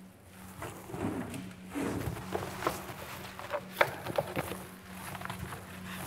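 Irregular footsteps and light knocks and clicks of things being handled, over a steady low hum.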